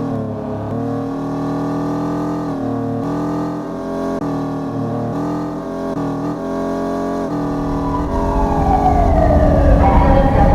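Genesis G70 driving on a highway, heard from inside the cabin: a steady engine drone of several held tones that dip briefly every few seconds. About three-quarters of the way in, a louder low rumble builds and a tone slides down in pitch.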